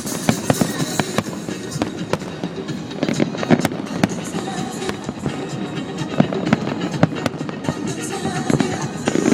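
Fireworks going off in rapid, irregular bangs and crackles, with music playing underneath.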